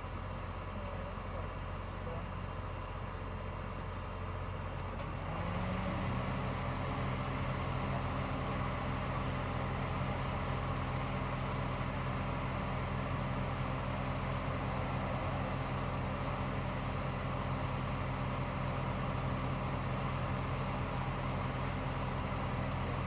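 A steady mechanical hum; about five seconds in a motor starts up, rising briefly in pitch, then runs at an even pitch.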